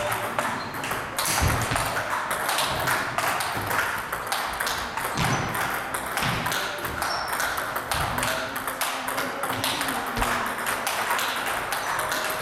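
Table tennis balls being played: many rapid, overlapping clicks of ball on bat and table, with a few low thuds among them.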